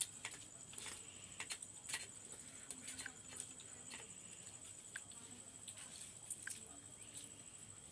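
Faint, scattered soft clicks and smacks of people eating rice and curry by hand: fingers working food on plates, and chewing. A thin, steady high whine runs underneath.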